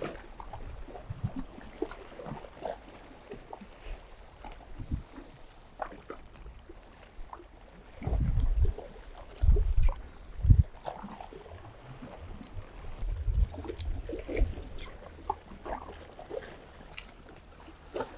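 Small waves washing and trickling over shoreline rocks, with a few louder low rumbles about eight to eleven seconds in.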